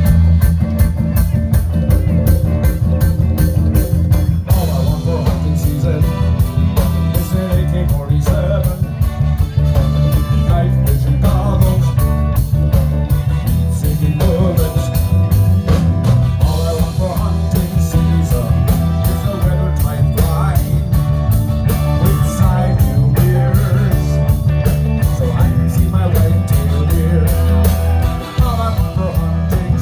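Live reggae band playing, with a steady drum beat, a heavy bass line, and guitar and keyboard over the top.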